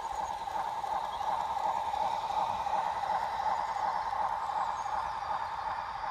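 O gauge model pannier tank locomotive running along garden track with its autocoach: a steady whine from the motor and gears with the wheels rolling on the rails. It grows louder as the train passes close and eases off near the end as it draws away.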